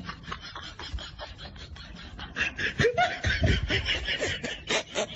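Snickering, giggling laughter in quick pulses, getting louder about two seconds in.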